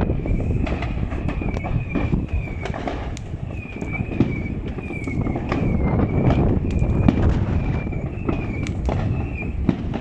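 Fireworks and firecrackers going off, many sharp pops and bangs over a dense low rumble, with a high wavering tone repeating throughout.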